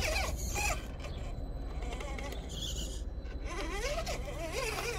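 Absima Sherpa RC crawler's electric motor and gearbox whining in low gear as it creeps up stone slabs, the pitch rising and falling with the throttle. The whine dies away for about two seconds in the middle and picks up again near the end.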